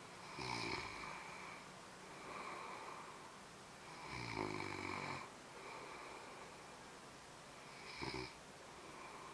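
A man snoring in his sleep: three snores, the second the longest, with quieter breaths between. He is wearing a Kogolstop anti-snoring nose device, which is not stopping the snoring.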